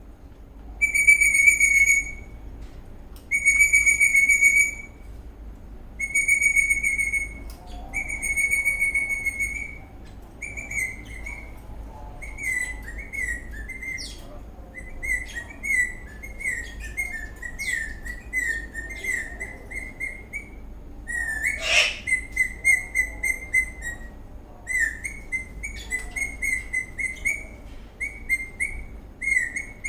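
Eastern rosella parrot whistling: four long, steady notes at one pitch, then a long run of quick, short chirping notes, with one sharper, louder note about two-thirds of the way through.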